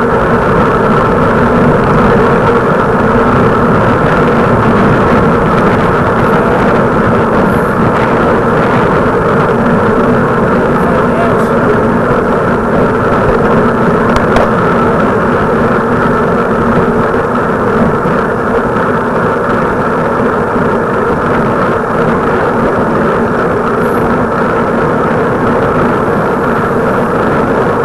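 Steady, loud mechanical drone of a vehicle in motion, with several constant hum tones and no breaks.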